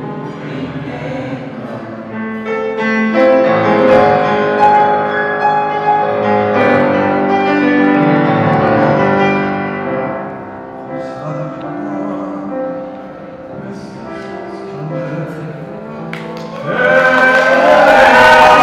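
Small mixed vocal ensemble of men and women singing together in several parts, accompanied by a grand piano. The music swells to its loudest near the end, where one voice holds a note with wide vibrato.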